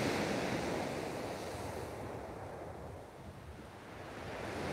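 Surf breaking and washing up a shingle beach, loud at first, easing off about three seconds in, then building again near the end as the next wave comes in, with wind on the microphone.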